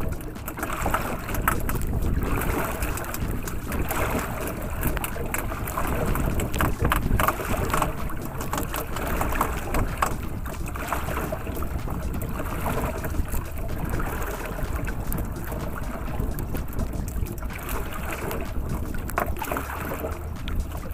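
Wind noise on the microphone with choppy water lapping and splashing against a small outrigger canoe's hull.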